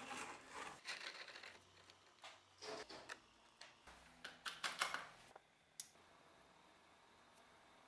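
Faint handling noises: scattered knocks, clicks and rustles as the rusty cleaver and its wire leads are set in a plastic electrolysis tub and the power strip is reached. Near the end comes one sharp click, then a faint steady hiss.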